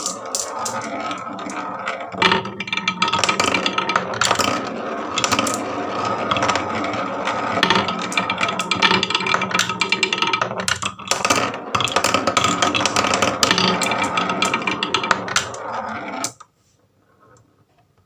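Many marbles rolling and clattering down a wooden marble-run track, a dense stream of clicks and rattles that cuts off suddenly near the end.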